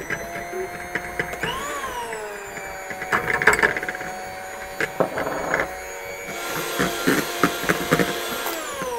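Electric hand mixer whipping egg whites in a bowl: a steady motor whine that rises in pitch about a second and a half in and then settles, with the beaters knocking and rattling against the bowl. Near the end the whine slides down in pitch and fades as the mixer is switched off.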